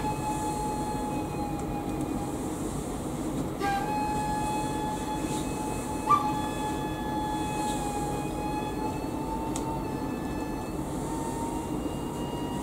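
Solemn ceremonial music: a single high wind instrument holding long, steady notes, with a new note starting about 4 seconds in and again about 6 seconds in, and the pitch creeping slightly upward near the end.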